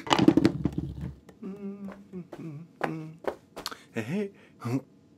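Cartoon sound effects: a fruit bowl and fruit clattering and thudding onto the floor in about a second of quick knocks, then a voice making several short 'ooh'-like sounds with a wobbling pitch.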